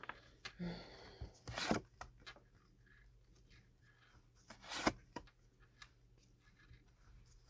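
Faint rustles and light taps of tarot cards being handled and laid down. They come as a few scattered short sounds in the first two seconds and again around five seconds in.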